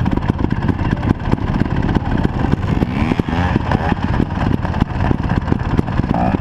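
Wind buffeting a helmet-mounted action camera's microphone: a loud, steady low rumble full of crackles.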